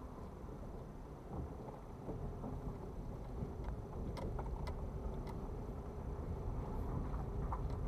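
A car rolling slowly over an unpaved gravel yard, heard from inside the cabin: a steady low engine and tyre rumble with a faint hum, and scattered light clicks from about halfway through.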